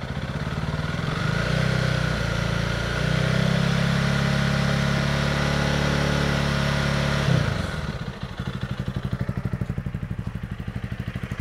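Honda CRF300 Rally's single-cylinder four-stroke engine, through its stock exhaust, revved up from idle and held at a steady 4,500 rpm for several seconds. It then drops back to a pulsing idle a few seconds before the end.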